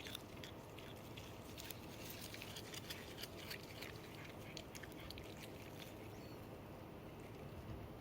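Cat chewing a treat: faint, quick crunching clicks, thickest in the middle seconds.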